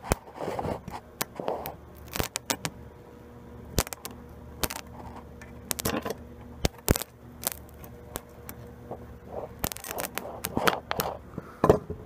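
Homemade microwave-oven-transformer metal melter pushing several hundred amps through thin tweezer metal clamped in its jaws: irregular sharp crackles and snaps of sparking as the metal melts. A steady low hum runs underneath.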